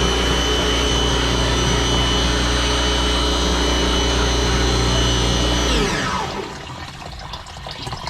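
Electric toolbox drain jetter's pump motor running steadily as it jets out a sink drain line, then switched off about six seconds in, its pitch falling quickly as it winds down. A quieter, uneven noise follows.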